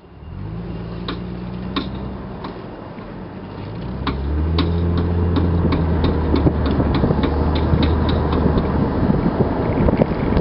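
2001 Lexus IS300 pulling away and accelerating, its engine hum rising, with a sharp click from the left rear. The clicks come roughly every 0.7 s at first and quicken to about three a second as the car gains speed, so they keep time with the road speed. Their cause is unknown.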